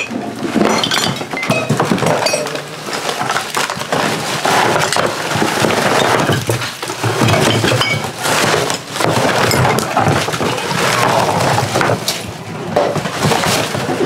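A shovel scraping and scooping through piled kitchen trash and tipping it into a plastic trash can: continuous scraping and rattling, with clinks and crashes of bottles, jars and other hard rubbish.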